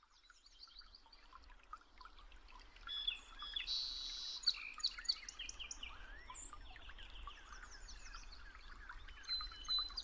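Several forest birds chirping, trilling and whistling at once in a busy dawn-chorus-like mix, fading in over the first couple of seconds.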